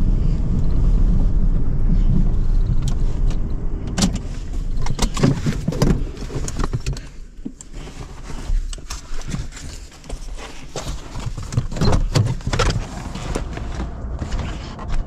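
Truck running on the road, heard from inside the cab as a steady low rumble for about four seconds. Then the rumble falls away and a string of clicks, knocks and rustling follows as the driver handles his gear and opens the door to climb out.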